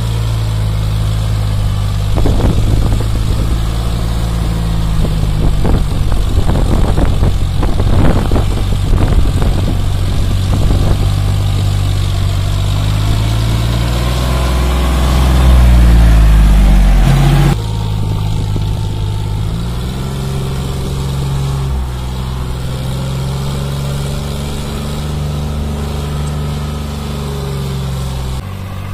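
A John Deere tractor's diesel engine running under load while pulling a loaded trolley over a rutted dirt track, with the trolley rattling and clanking over the first ten seconds or so. The engine note rises and falls about halfway through, loudest just before it cuts off abruptly, then runs on steadily.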